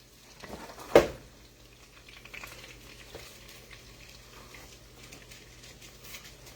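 Food frying in oil in a pan, a steady faint sizzle with fine crackles. A single sharp clack about a second in.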